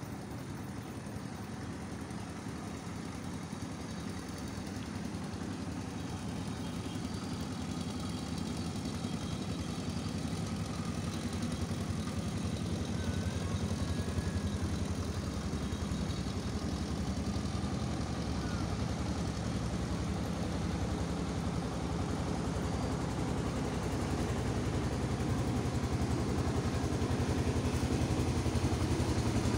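An engine running steadily with a low hum, slowly growing louder.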